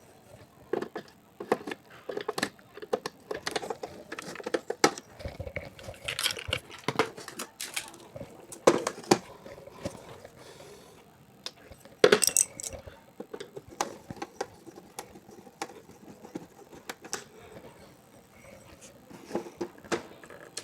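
Irregular clicks, taps and clinks of a wall clock's case and screws being handled and fastened, with a louder knock about twelve seconds in.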